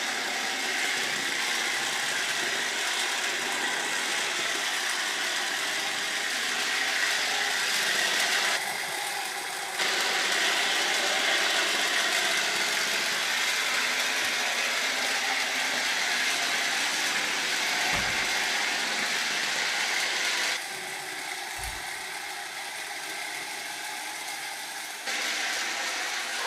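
Roomba robot vacuum running and making an abnormal mechanical noise. The noise is steady and gets louder and quieter in steps, with two low thumps near the middle.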